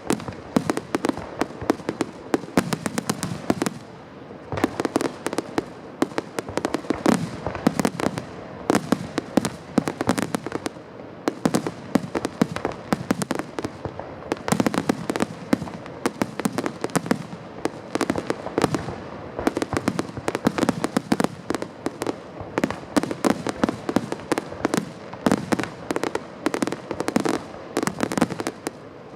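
Fireworks finale: a dense, continuous barrage of shell bursts, sharp bangs and crackles overlapping one another, with deeper booming swells every few seconds.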